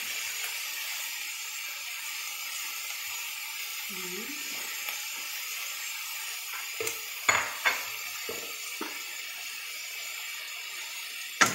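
Chicken and vegetables sizzling steadily in a hot stainless steel wok. From about seven seconds in, a metal spatula clicks and scrapes against the pan a few times, with a louder knock near the end.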